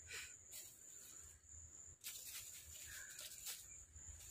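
Faint, steady high-pitched insect drone, like a cricket, with a stretch of crackling dry-leaf rustle from about halfway through as the landed snakehead fish is handled in the leaf litter.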